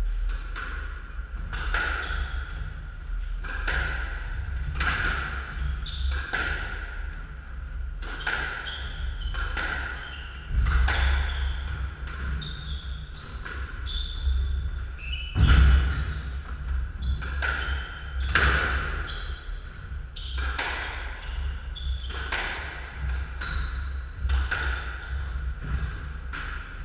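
Squash rally: the ball cracking off rackets and the court walls, a sharp hit roughly every second, with one louder hit about halfway through.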